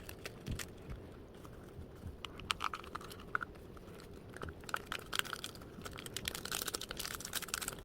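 Scattered light clicks and taps, denser near the end, as a mixture is stirred in a small cup.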